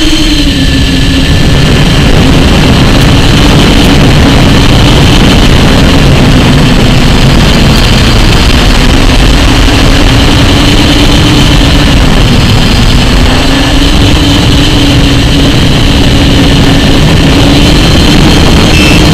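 Onboard audio of an FPV model aircraft in flight: the motor and propeller make a steady, loud hum whose pitch drifts slightly up and down with the throttle, under heavy wind rush over the camera microphone.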